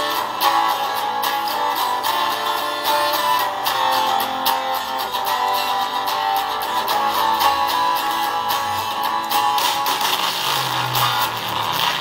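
Strummed guitar music played back through a homemade mini USB plug-and-play speaker, with an LM386 amplifier driving two small drivers; the sound has little bass.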